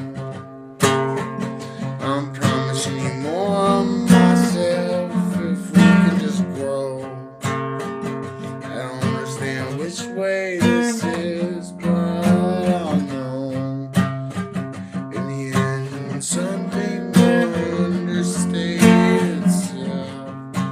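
Acoustic guitar strummed and picked, playing a folk song accompaniment.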